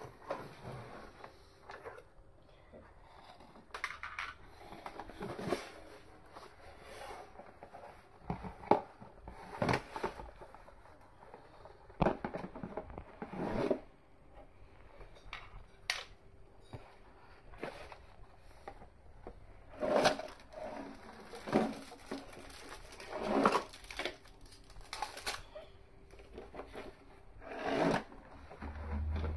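Scissors snipping and cardboard and plastic packaging rustling as a toy gun's box is cut open, in irregular bursts with sharp knocks and clicks, the loudest around the middle of the stretch.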